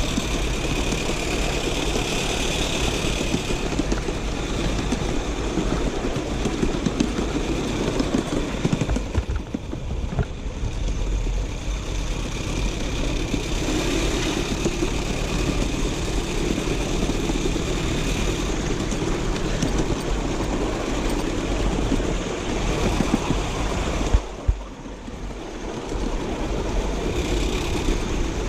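Miniature steam locomotive running along its track with a steady mechanical running noise, which drops briefly twice, about ten seconds in and near the end.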